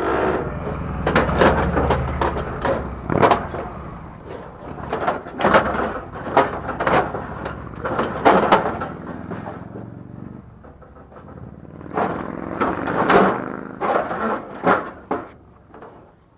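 Scrap metal being shifted and fitted into place, with repeated irregular knocks and clanks over a low rumble in the first few seconds.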